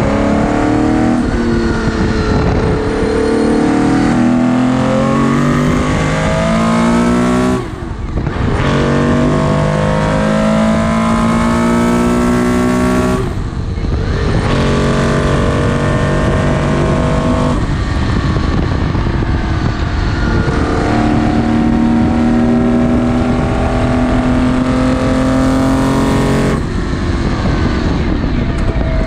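Porsche 917/10's flat-12 engine at full throttle heard from the open cockpit, its pitch climbing through the gears with upshifts about 8, 13 and 18 seconds in, then lifting off near the end.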